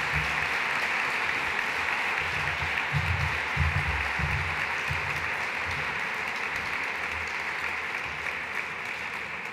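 Audience applauding steadily, a dense even clapping that eases off slightly near the end.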